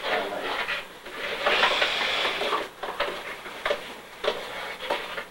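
Kitchen work noise: rustling and scraping with a few sharp clicks, as a chicken breast is pressed and turned in a tray of flour for breading.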